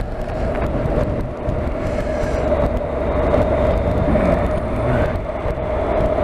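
Honda NC750X parallel-twin motorcycle cruising on the road, its engine running under wind and road noise picked up by a helmet-mounted camera, with a steady whine.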